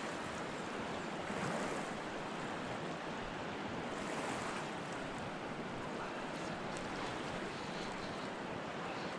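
Steady rush of a fast-flowing river current, with a couple of faint clicks about two-thirds of the way in.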